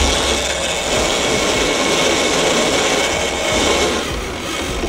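Boat under way with its outboard engine running, a steady roar of engine, wind and water noise.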